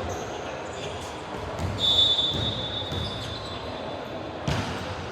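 Indoor basketball game: a referee's whistle blown once for about a second and a half, over court noise with short sneaker squeaks, and a sharp thud of a ball or foot on the court about four and a half seconds in.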